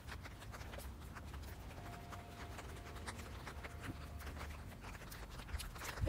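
Faint, irregular light ticks and patter of footsteps on wet brick paving in light rain, over a low rumble.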